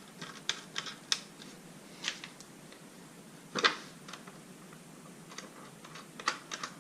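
Scattered small clicks and knocks of metal bolts and nuts being fitted by hand into a plastic snow shovel blade and mount. The sharpest click comes about three and a half seconds in, with a few more near the end.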